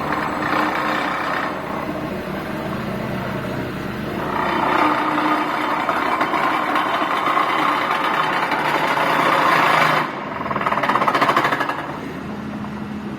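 High-frequency vibratory pile driver shaking steel sheet piles, a fast, dense buzzing rattle. It grows louder about four seconds in, drops briefly near ten seconds, surges again, then eases off near the end.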